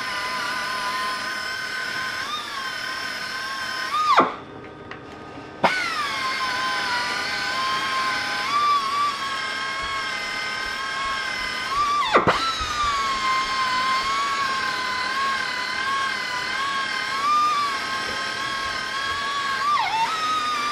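Small air polisher with a 3-inch wool buff spinning with a high whine while it polishes an engine side cover, its pitch sagging and recovering as the buff is pressed on. It winds down and stops about four seconds in, starts again a second and a half later, and bogs down sharply twice more, near the middle and near the end.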